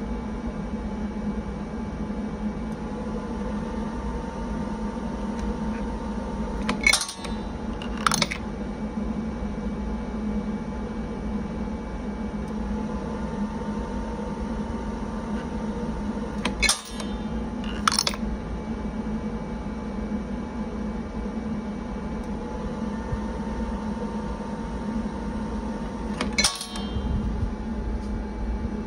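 Induction annealer for brass cartridge cases running through its cycle: a steady fan hum, a faint high whine for about four seconds while the coil heats a case, then a sharp clack as the annealed case drops and another about a second later as the next case drops into the coil. The cycle repeats about every ten seconds.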